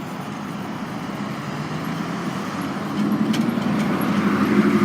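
A motor vehicle's engine coming closer over steady road noise: a steady low hum that grows louder from about three seconds in.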